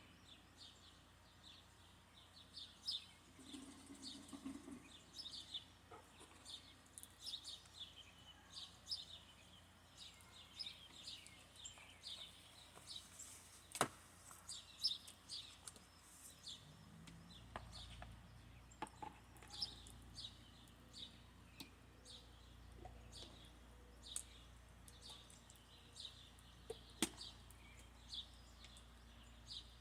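Faint, repeated short high chirps of birds throughout. A few sharp clicks sound along the way, and a low steady hum starts a little over halfway through.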